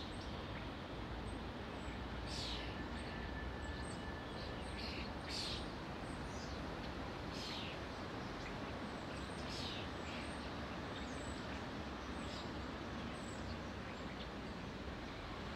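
Outdoor ambience: a steady hum of distant environmental noise with small birds giving short, falling chirps every couple of seconds.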